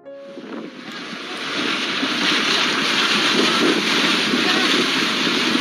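Roar of a debris flow, a mass of mud and rocks rushing down a stream channel, swelling over the first couple of seconds and then running steadily.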